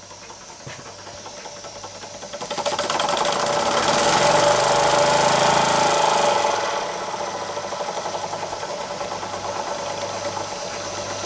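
Jensen Model 70 model steam engine running under steam, with a rapid hissing exhaust beat. It speeds up and grows louder about two and a half seconds in, then eases back to a steadier, quieter run near the seventh second as a hand works the valve on the boiler.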